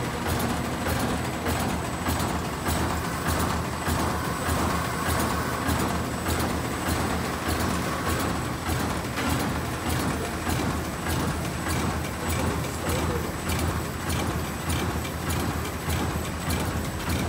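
Doypack zipper pouch making machine running, its sealing and cutting heads cycling in a steady rhythm of clicks and knocks, about two a second, over a constant mechanical hum, with a thin steady high whine.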